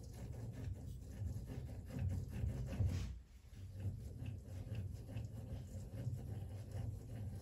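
Myford Super 7 lathe carriage wound along the bed by hand with its apron handwheel: a continuous low rubbing with fine clicking from the rack and pinion, broken by a short pause about three seconds in.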